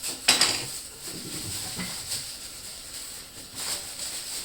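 Model-kit parts and their packaging being handled: a sharp crackle about a third of a second in, then quieter rustling and light knocks.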